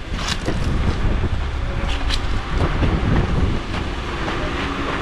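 Wind buffeting the microphone, with road traffic passing close by and the faint drone of car engines.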